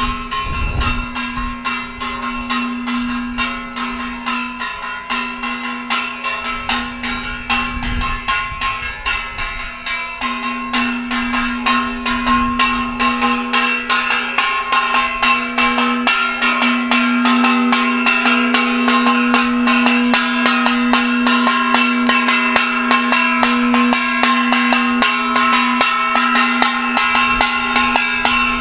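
A metal bell rung fast and steadily, about four or five strokes a second, its ringing tones overlapping into a continuous clang. It grows louder about a third of the way through.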